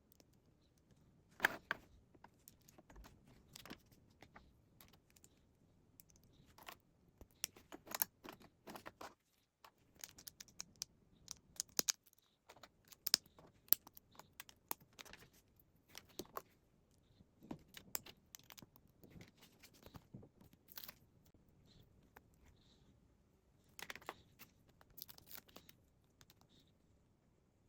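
Plastic Lego bricks clicking and rattling as pieces are handled and pressed together: irregular sharp clicks, with short pauses now and then.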